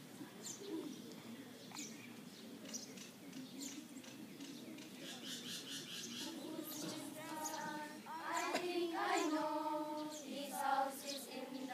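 Small birds chirping, short high chirps about once a second, over a faint murmur of people. About seven seconds in, a group of students begins singing together in unison, with held notes, and it gets louder.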